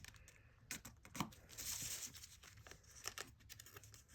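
Folded paper being handled and creased by hand: faint rustling and crinkling with a few sharp crackles, and a longer rustle about one and a half to two seconds in.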